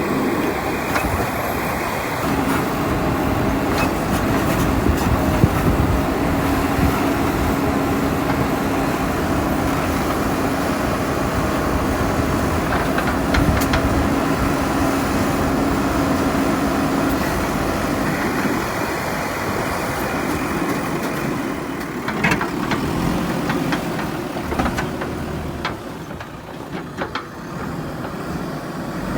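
JCB backhoe loader's diesel engine running steadily under work, with a steady hum that drops away about two-thirds of the way through. A few sharp knocks follow, and the engine is quieter near the end.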